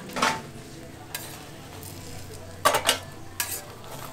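Metal spatula or press scraping and clanking on an oiled hotteok griddle over a steady frying sizzle. There is one sharp scrape just after the start, a quick cluster of two or three clanks about three-quarters through, and a few lighter clicks.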